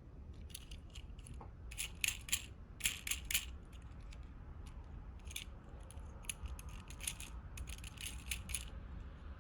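Small die-cast toy cars clicking and clinking against one another as they are handled and sorted through in a box. The sharp ticks come in clusters, busiest about two to three and a half seconds in and again around seven to nine seconds.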